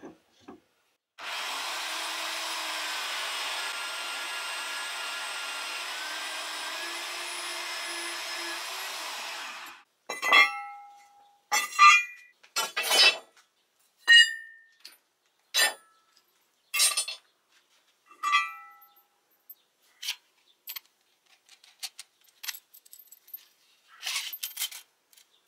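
About eight seconds of steady power-tool noise that starts and stops abruptly. It is followed by a series of sharp metallic clinks and knocks, each briefly ringing, as steel angle pieces, nuts and a threaded bolt are handled and set down on concrete. A short clatter comes near the end.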